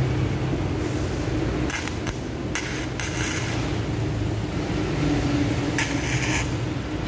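Gasless flux-core MIG welder arc crackling in short bursts on 2 mm steel, starting about two seconds in and again about six seconds in, over a steady low hum.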